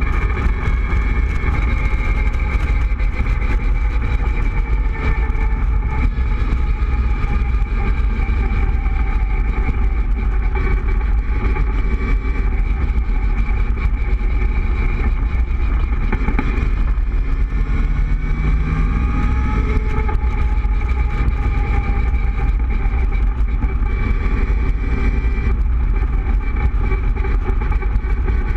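Open-top Cobra roadster cruising at steady road speed: its engine runs with a steady drone under road noise and heavy wind rumble on the microphone.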